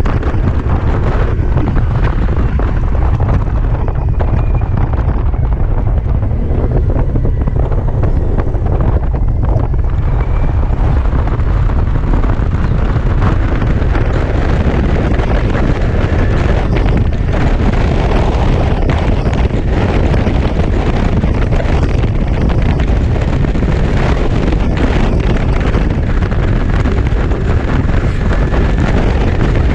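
Steady wind buffeting on the microphone, with tyre and road rumble, from a BMW C Evolution electric scooter riding at road speed.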